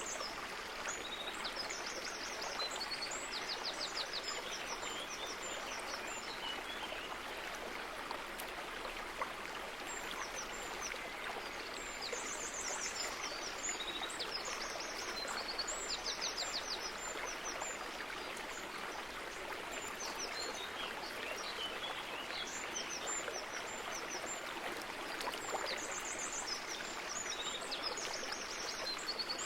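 Steady rush of running water from a stream, with a small songbird singing high chirps and quick trilled phrases over it in several bouts.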